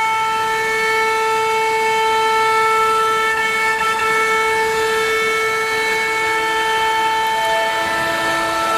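High-speed CNC router spindle running with a steady, high-pitched whine made of several pitches stacked together. About three-quarters of the way through, a second, lower pitch joins it.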